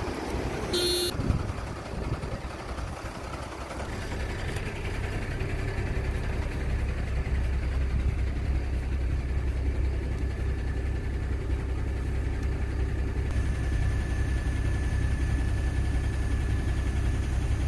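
Heavy diesel engine working under load as a stuck truck is pulled out, its sound building over the first few seconds and then held steady. A steady whine joins it about ten seconds in, and a brief high tone sounds about a second in.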